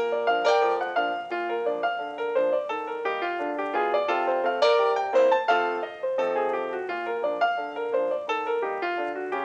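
Piano music: a lively stream of quick, short notes.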